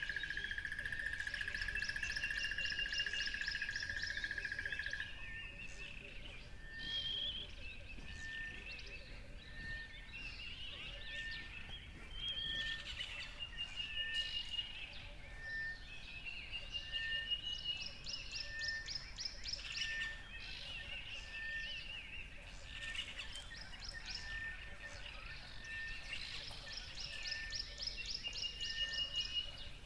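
Several birds chirping and singing together in overlapping, repeated phrases. A steady high trill runs for about the first five seconds, and after it a short single note repeats about once a second.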